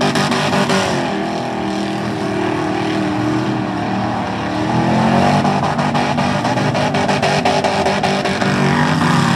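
Mud bog truck's engine running hard under throttle, its pitch falling and rising several times as the revs change, climbing about halfway through and dropping again near the end.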